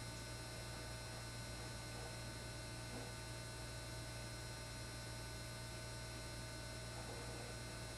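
Steady electrical mains hum, a low drone with a thin hiss over it, even throughout.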